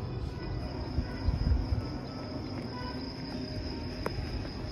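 Night insects chirring in a steady high-pitched drone, over low rumbling wind and handling noise on a phone microphone, with a single sharp click about four seconds in.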